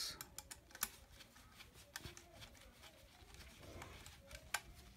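Faint scattered clicks and scrapes of a screwdriver working a screw on a transformer's sheet-metal mounting plate.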